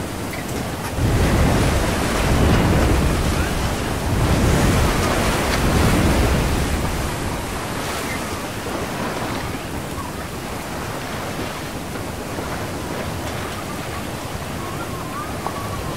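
Storm at sea: a dense rush of heavy rain and wind with waves crashing over a ship's deck. Big surges of water come about a second in and again around four seconds in, then the rain settles to a steady rush.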